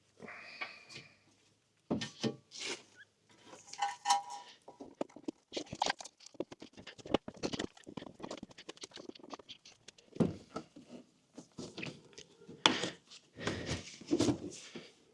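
Irregular clicks, knocks and scraping from a car's front bumper being handled and fitted back into place by hand, in short scattered bursts with brief pauses.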